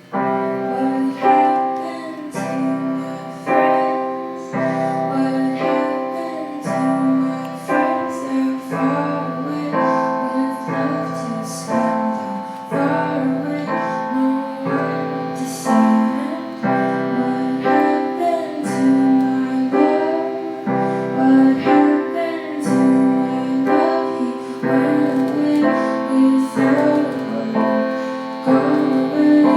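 Live music: a piano-type keyboard playing a steady pattern of chords, struck a little under once a second, with a woman singing over it.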